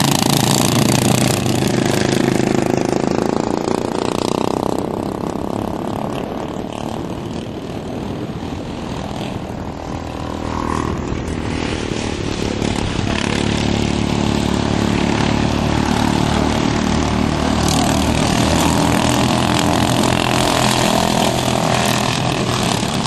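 Racing ride-on lawn mower engines running hard, the sound easing off somewhat in the middle and growing louder again.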